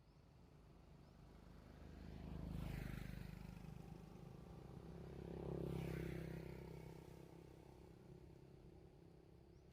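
Two motor vehicles passing one after the other, each engine hum and tyre hiss swelling and then fading: the first peaks about three seconds in, the second about six seconds in.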